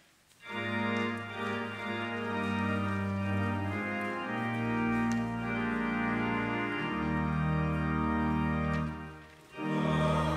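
Church organ playing held chords. The music breaks off briefly near the end, then starts again.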